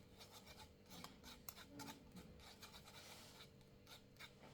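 Near silence with faint light scratching and small scattered ticks.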